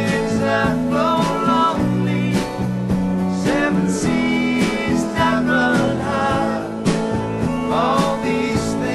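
Country-style song with guitar, playing steadily.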